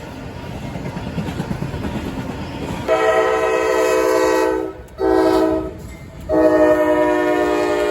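Rumble of a passing CSX double-stack freight train. About three seconds in, the locomotive's multi-chime air horn sounds: a long blast, a short one, then another long blast that is still sounding at the end.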